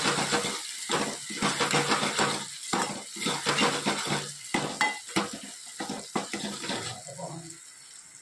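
Metal spoon scraping and clinking against the inside of an aluminium pot, stirring and mashing a cooked tomato-garlic mixture, in quick irregular strokes that thin out and stop near the end.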